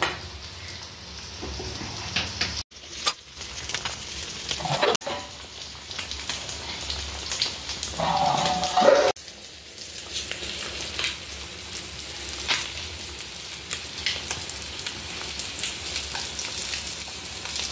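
Red fish curry bubbling and sizzling in a clay pot, with a metal spoon stirring and scraping through it. About eight seconds in there is a louder metallic scrape with a ring as a metal lid is handled over the pot.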